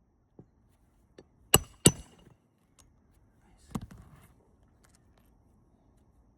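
Two sharp hammer blows on metal, about a third of a second apart and ringing briefly, then a softer knock a couple of seconds later, with a few faint taps in between.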